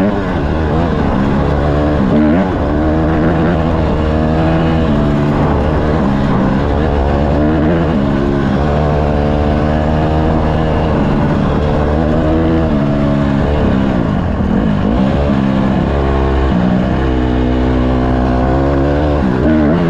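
Honda CRF150RB dirt bike's four-stroke single-cylinder engine being ridden hard, its pitch revving up and dropping back again and again every second or two.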